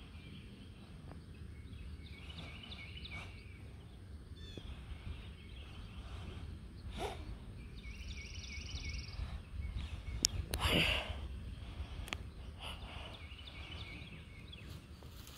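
Outdoor ambience: a bird singing short phrases of rapid chirps several times over a low rumble of wind. A brief louder noise comes a little past the middle.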